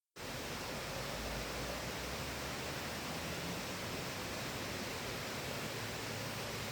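Steady, even hiss with no distinct events in it, starting suddenly just as the clip begins.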